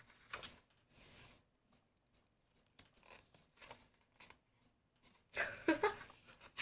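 Glossy photobook pages being handled and turned: short papery swishes and light clicks of paper. Near the end, a woman laughs briefly.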